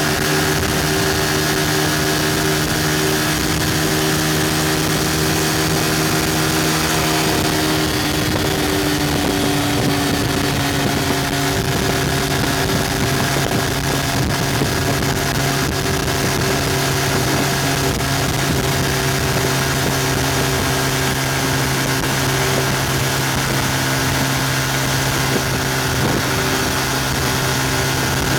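Yamaha FZ150i's single-cylinder engine running at high revs, around 9,000 rpm, at highway speed near 120 km/h. Its pitch sags slightly as road speed eases off. A steady rush of wind and road noise runs underneath.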